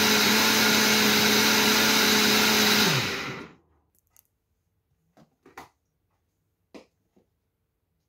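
Countertop blender running steadily at speed, blending a liquid potato and oat mixture. About three seconds in it is switched off and the motor winds down, dropping in pitch. A few faint knocks follow.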